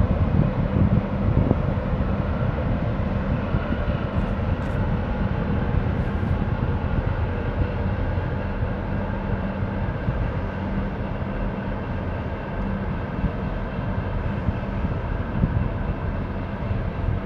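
Harbour tug's diesel engine droning steadily as it passes, a low even hum over a rumble of wind on the microphone.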